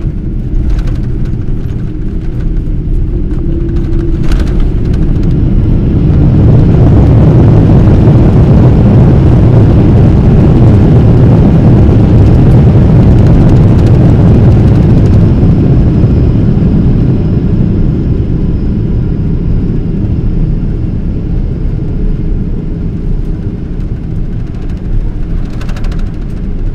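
Boeing 777-300's twin turbofan engines and airframe heard from inside the cabin during the landing roll. Two brief knocks come in the first few seconds, then a heavy roar builds about six seconds in, holds for about ten seconds and gradually dies away as the airliner slows, typical of reverse thrust being applied and then cancelled.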